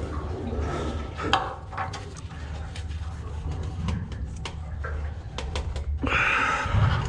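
Handling noise of a webbing strap wrench being fitted around an engine's spin-on filter: scattered clicks and knocks over a steady low hum, with a louder, noisier stretch starting about six seconds in.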